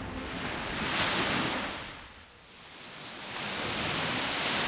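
Sea waves washing in, a wash of surf that swells, falls away about two seconds in, then builds again. A thin, steady high-pitched tone joins about halfway through.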